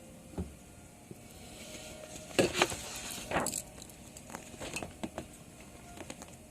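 A pause in the keyboard playing, filled with scattered handling noises: a few sharp clicks and short clattering knocks, the loudest bunch about two and a half to three and a half seconds in.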